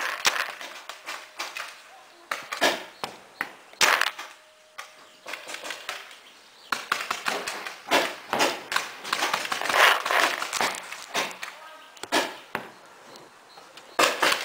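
Irregular sharp clicks and knocks, some close and loud, with faint voices in the background.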